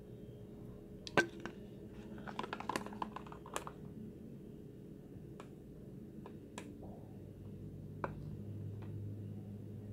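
Scattered clicks and light knocks of a small plastic tub being handled, the loudest about a second in and a quick run of them around three seconds, then a few single ticks, over a faint steady hum.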